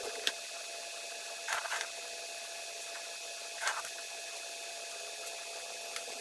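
Faint handling noises as a stripped wire is fingered and brought to a potentiometer's solder lugs: a short click just after the start, then two brief rustles about one and a half and three and a half seconds in, over a steady background hiss.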